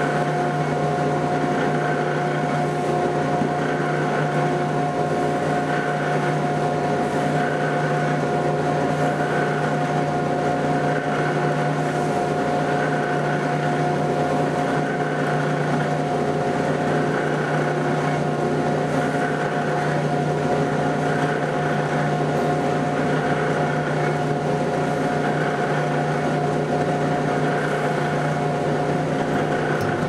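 Electric bench buffing wheel running with a steady motor hum and whir while a small pocket knife is held to the wheel.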